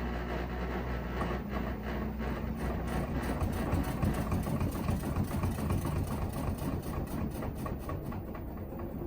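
New LG washing machine running with a loud low hum and rumble, with a fast, irregular rattle of clicks on top that swells in the middle and eases a little near the end. The owner takes the noise for a fault; a repairman called it normal.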